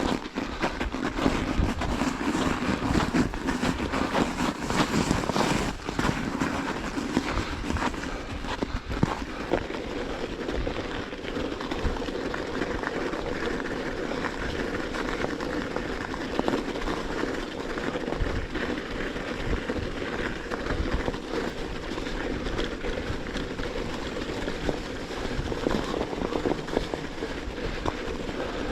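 Bicycle riding over crusted snow: steady rolling rumble of tyres crunching through the crust, with many small knocks and rattles from the bike.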